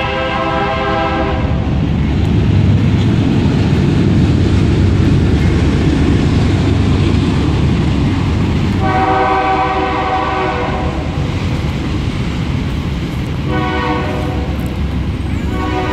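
Train horn sounding several long, steady blasts, with a loud low rumble of the train running underneath. One blast fades out about a second and a half in, another comes around nine seconds, and two more come near the end.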